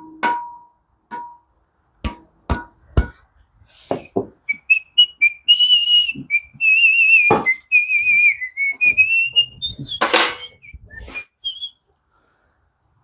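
A person whistling a short, wandering tune, with scattered sharp metallic clicks and knocks from rotary engine parts being handled while a dowel is worked loose. The loudest knock comes about ten seconds in.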